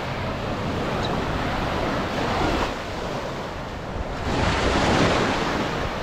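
Small ocean waves breaking and washing up the sand, with wind rumbling on the microphone. A wave washes in louder about four seconds in.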